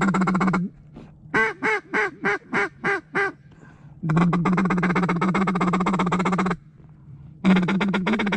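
Mallard duck call blown by a hunter to work passing mallards. First a stretch of fast chatter, then a string of seven separate quacks, then two longer runs of fast chatter.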